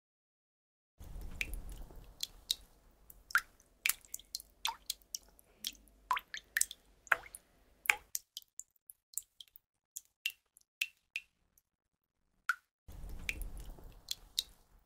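Water drops falling one by one into an enamel basin of water, irregular plinks and drips, thick and quick for the first several seconds, then sparse single drops.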